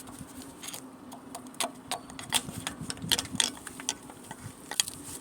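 Irregular metallic clicks and clinks of a screwdriver being worked against a lifted brake caliper to prop it in place, over a faint steady hum.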